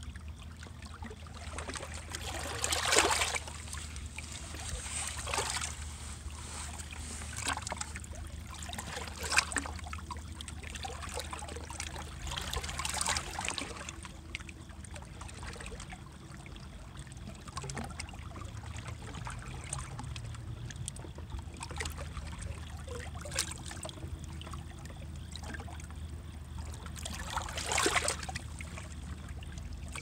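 River water lapping and splashing against shoreline rocks, with irregular louder splashes, the biggest about three seconds in, around thirteen seconds, and near the end. Under it runs a steady low hum.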